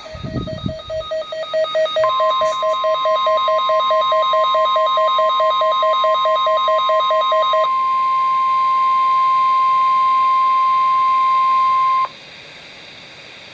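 NOAA Weather Radio EAS test alert: a rapidly pulsing beep, about seven a second, and a steady 1050 Hz alert tone joining it about 2 s in. The beeping stops at about 7.7 s, and the tone holds until it cuts off abruptly about 12 s in. Only steady radio hiss follows, the dead air of a failed test in which no message came after the headers.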